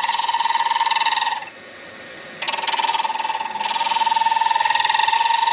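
Turning tool cutting a spinning acrylic pen blank on a midi lathe: a steady high-pitched cutting tone with a fast chatter. It breaks off for about a second, about a second and a half in, then starts again.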